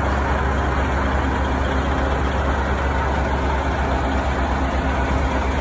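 Semi truck's diesel engine idling with a steady low rumble.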